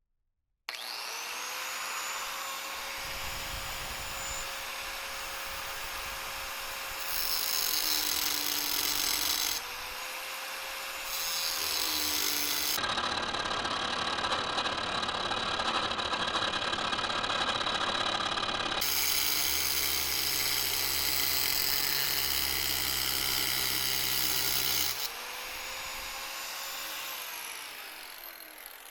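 DeWALT 4½-inch angle grinder with a metal cutting disc. It spins up with a rising whine about a second in, then runs steadily. It cuts steel in several stretches of loud, harsh grinding and winds down with a falling whine near the end.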